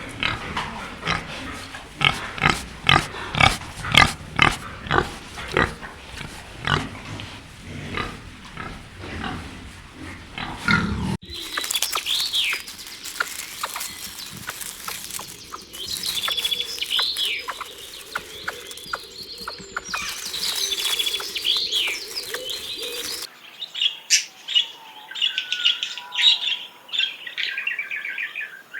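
Pig grunting in a quick series of short grunts, about two a second, for the first eleven seconds. Then other animals take over with high-pitched chirping calls, quicker and denser in the last few seconds.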